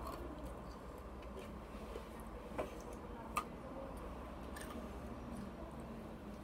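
Fingers handling and tapping an ice cube close to the microphone: two sharp clicks about a second apart near the middle, with a few fainter ticks, over a low steady hum.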